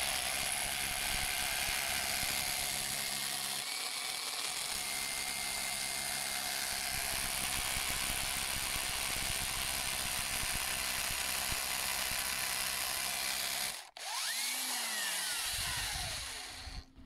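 Bosch GBH 24V cordless SDS rotary hammer drilling into brick, hammering steadily for about fourteen seconds. It then stops briefly and runs free for a couple of seconds, its motor whine rising and then falling in pitch, before it stops near the end.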